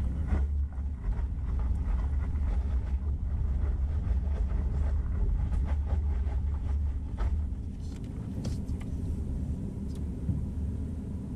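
Vehicle driving slowly on a dirt road, heard from inside the cab: a steady low rumble of engine and tyres with a few faint knocks, easing off slightly near the end.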